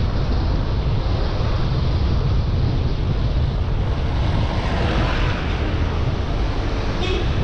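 Wind buffeting the microphone of a bicycle-mounted camera coasting fast downhill, a loud low rumble. A higher hiss swells briefly about five seconds in, and there is a short click near the end.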